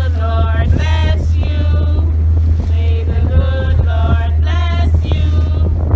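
Music with a singing voice carrying a melody, over a heavy steady low rumble of wind buffeting the microphone aboard a moving boat.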